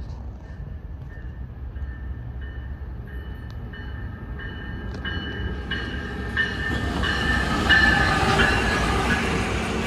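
Amtrak Pacific Surfliner passenger train, led by a Siemens Charger diesel locomotive, approaching and passing. Its engine rumble and wheel noise grow steadily louder to a peak as the locomotive goes by about eight seconds in.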